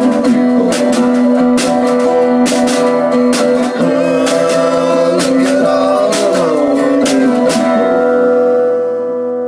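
Acoustic guitar strummed with a snare drum struck on a steady beat, a little more than one hit a second. Near the end the drum stops and the last guitar chord rings out and fades.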